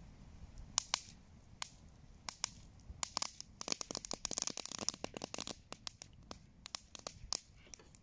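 Campfire crackling and popping as plant material thrown onto it burns: a scattered run of sharp snaps and pops, thickest around the middle, with a short hiss there.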